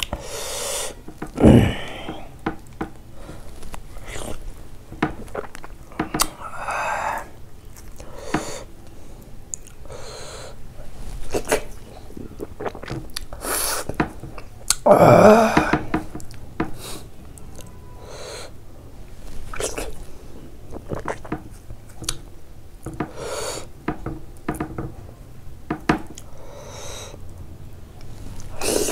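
Close-up eating sounds of a person chewing sticky buckwheat dhido and pork trotter: steady wet chewing, lip smacks and small mouth clicks. A loud low thump comes about a second and a half in, and a longer, louder breathy sound about halfway through.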